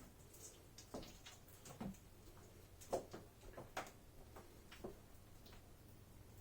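Faint, irregular light clicks and knocks, about five of them spread over several seconds, over a faint steady low hum.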